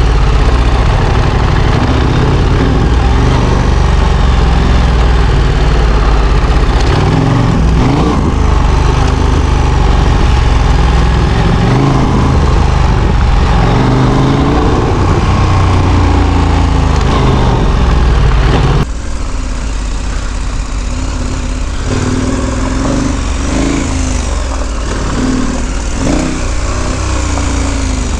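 KTM 1290 Super Adventure R's V-twin engine running under way, rising and falling in pitch as the throttle opens and closes. About two-thirds of the way through the sound abruptly becomes quieter and loses much of its deep rumble.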